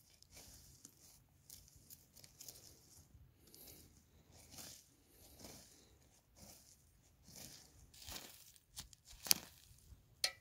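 Wooden stick scraping and scooping dry earth off a buried earth oven of charcoal, in a string of short gritty strokes, with one sharper, louder scrape about nine seconds in.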